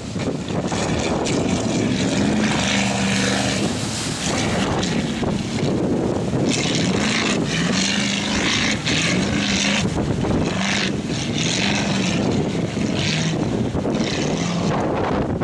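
Offshore racing powerboats' engines droning, the engine note wavering up and down, under heavy gusts of wind buffeting the microphone.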